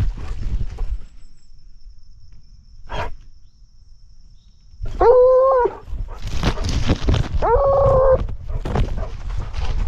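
Blood-trailing hound giving voice on a hot track, two short bays held at one pitch about five and seven and a half seconds in, heard close up from its own collar. Running through thick brush, with the swish of branches and its footfalls around the bays.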